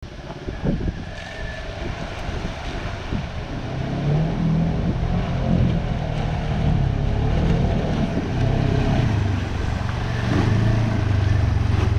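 The engine of an old Ranger utility vehicle running as it drives along a trail, with a sharp knock and rattles in the first couple of seconds. The engine note grows louder and steadier from about four seconds in.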